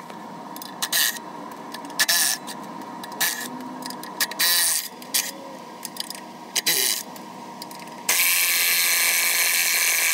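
Cordless electric ratchet spinning out the clutch pressure-plate bolts, in several short bursts and then one longer run near the end.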